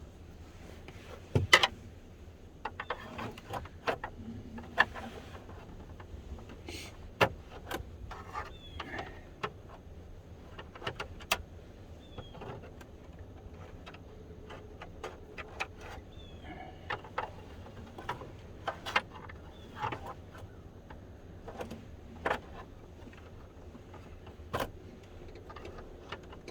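Irregular clicks, knocks and light rattles of someone working and fumbling with parts inside a pickup truck's cab, with the sharpest knock about a second and a half in.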